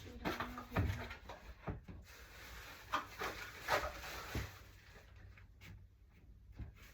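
Rustling of bedsheet fabric being handled on a bed, with scattered soft knocks and bumps, busiest in the first four seconds and thinning out after.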